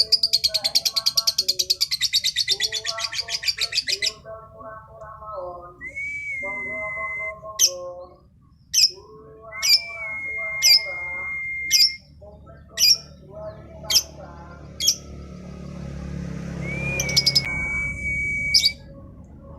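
A female lovebird in full song, the kind Indonesian keepers call 'bocor' or 'gacor', singing like a male: a fast, high chattering trill for about four seconds, then sharp high chirps about once a second. Three times a long steady whistled note is held for one to two seconds. Softer, lower warbling calls of other birds run underneath.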